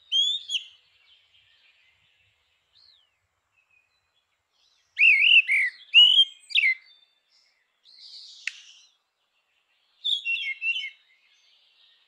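Grey-winged blackbird singing: separate phrases of fluty, warbling whistles, one at the start, a longer and louder run about five seconds in, a fainter scratchy phrase with a click near eight seconds, and another warbled run near the end.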